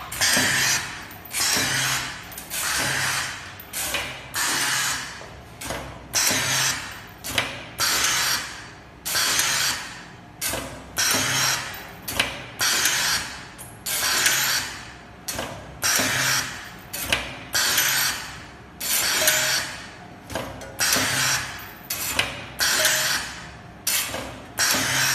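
WT-QX steel-rule cutting machine for die-making knives working through repeated cutting cycles, about one stroke a second, each starting sharply and fading out with a hiss in under a second.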